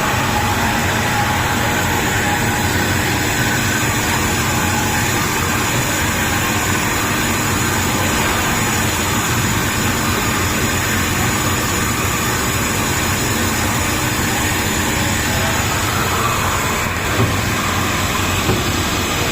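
Steady machine noise of a wire EDM machine running, an even hum and hiss with a couple of brief knocks near the end.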